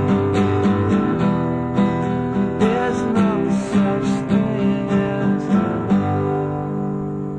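Acoustic guitar strummed in a steady rhythm, the closing bars of a song; the strumming stops about six seconds in and the last chord rings on, fading away.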